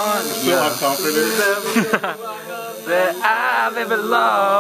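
Wordless a cappella male singing, several layered voices over a steady low drone.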